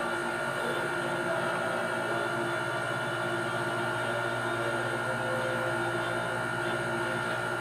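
Steady background hum: several constant tones over an even hiss, unchanging throughout.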